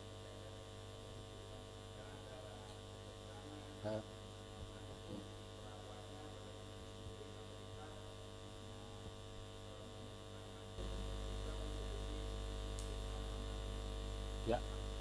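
Steady electrical mains hum from the sound system, with a few faint, brief sounds in the room. About two-thirds of the way in, the hum steps up in loudness as a deeper hum joins it.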